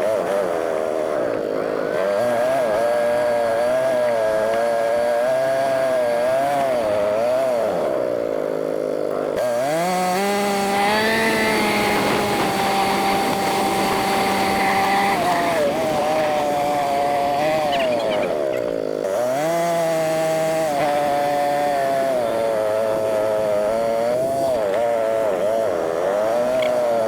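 ATV engine running, played back sped up so it sounds high and buzzy, its pitch rising and falling constantly as the throttle is worked. For several seconds in the middle it holds steady at higher revs.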